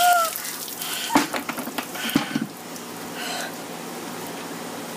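Ice water running and dripping off soaked clothing onto the ground just after a bucket dump, with a few sharp knocks and clatters about one and two seconds in, then settling to a faint trickle. A short high yelp at the very start.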